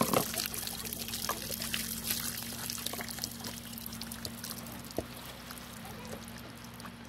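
Wet trickling and squelching as hands pull the innards out of a freshly killed, plucked chicken, with a sharp knock just after the start and another about five seconds in, over a steady low hum.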